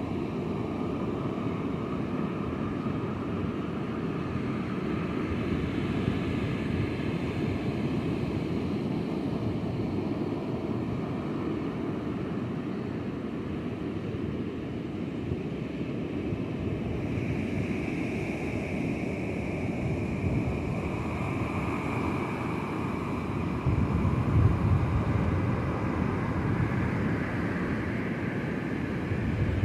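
Rough surf breaking and washing onto the beach, with wind buffeting the microphone. It is a steady rushing rumble, with a stronger gust of low rumble a little past three-quarters of the way through.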